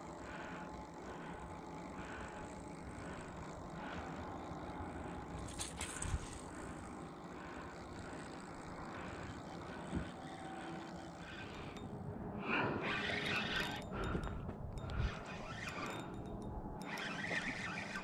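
Spinning reel cranked steadily to retrieve a topwater lure, a soft pulsing whir about once every two-thirds of a second. About twelve seconds in, louder uneven rustling and scraping noises take over.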